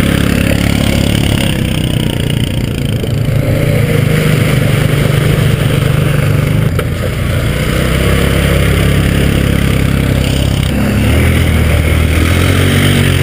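ATV engine running under load as the quad churns through mud, its pitch rising and falling a few times with the throttle.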